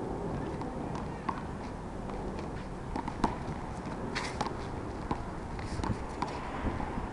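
One-wall handball rally: scattered sharp slaps and knocks of a small rubber handball off hands, the concrete wall and the asphalt, with shoe scuffs, over a steady low background rumble. The loudest crack comes about three seconds in.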